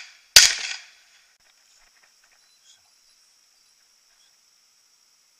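A shotgun shot about a third of a second in, coming close after a first shot that is still dying away at the start; it fades within about half a second, leaving only a faint steady high hiss.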